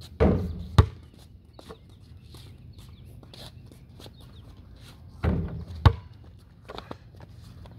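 Basketball shots: each time a dull thud against the hoop followed about half a second later by a sharp bounce on the ground. It happens twice, just after the start and again about five seconds in.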